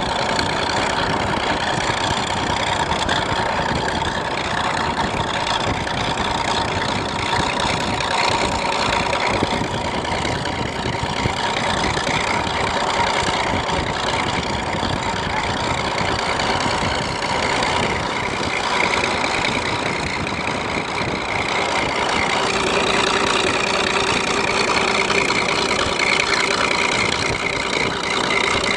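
A vehicle engine running steadily throughout, its pitch drifting only slightly.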